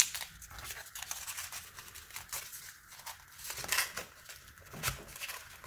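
Corrugated cardboard pieces rubbing and scraping against each other as two slotted pieces are worked together by hand into a slot joint: irregular short, scratchy rustles. There is a sharp tap right at the start.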